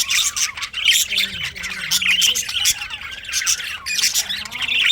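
Budgerigars chirping and warbling: a dense, continuous chatter of quick high chirps and squawks from several birds.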